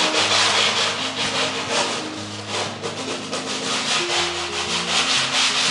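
Hand sanding with a grey abrasive pad rubbed back and forth over a dried filler patch on a screed floor: a quick, rhythmic scratching that smooths the repair flat before the linoleum goes down.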